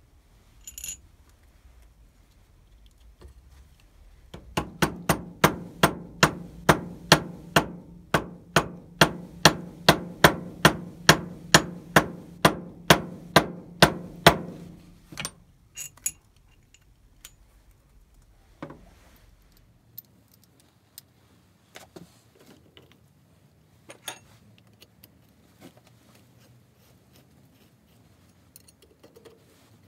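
A small hammer taps evenly, about two and a half light blows a second for about ten seconds, starting a few seconds in: a gasket sheet laid over a cast cover plate is being tapped out to shape. Afterwards come a few scattered knocks and handling clicks.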